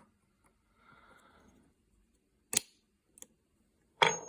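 Small metal pistol parts clicking and scraping as a Glock 36 slide is reassembled by hand. A sharp click comes about two and a half seconds in, and a loud metallic snap near the end rings briefly as a part is pushed home.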